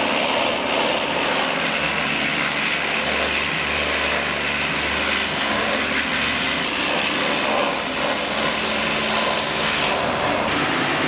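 High-pressure washer jet spraying water onto a pickup truck's open metal fuel filler door and the body around it, a steady rush of spray.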